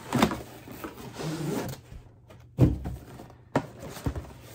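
Cardboard shoebox being handled and opened: a few sharp knocks and rubbing of cardboard, the loudest knock a little past halfway.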